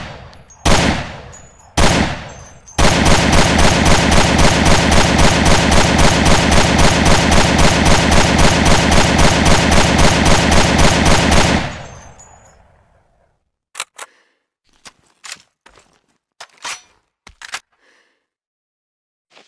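AK-7 assault rifle sound effect: three single shots, then a long burst of fully automatic fire at about four to five rounds a second for around nine seconds. It is followed by a few quieter, separate mechanical clicks and clacks.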